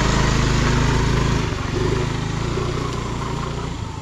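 Small motor scooter engine running as the scooter pulls away, its sound fading as it moves off into the distance.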